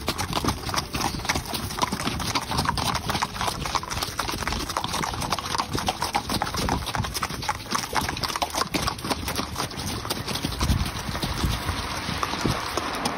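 Hoofbeats of a herd of horses trotting, many hooves striking at once in a dense, continuous patter.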